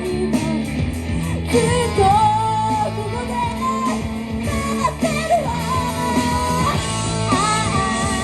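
Live rock band playing, with electric guitar and a sung melody over a steady low bass.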